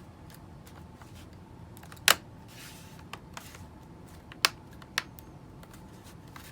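Plastic bottom cover of a Dell 3440 laptop being pressed back on, its clips snapping into place as a few sharp clicks. The loudest is about two seconds in, with two more near the end.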